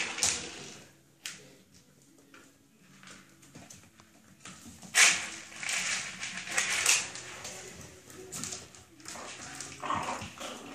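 Irregular scuffling, clicks and rustles of puppies moving about a playpen floor, with a sharp knock about five seconds in.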